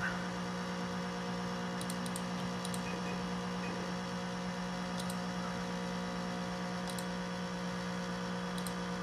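Macintosh SE running with its loud, steady fan hum, which the owner believes is abnormal. A few faint mouse-button clicks come over it.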